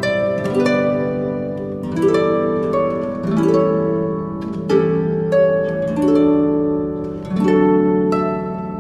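Background music on a plucked string instrument with a harp-like sound. Notes and chords are plucked about once a second, each ringing and then fading.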